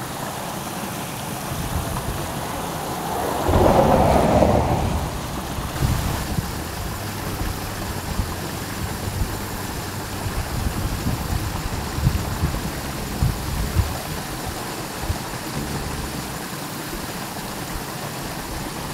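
Wind buffeting the microphone: a steady hiss with irregular low rumbles, and a louder swell of noise about three and a half seconds in that lasts a second or so.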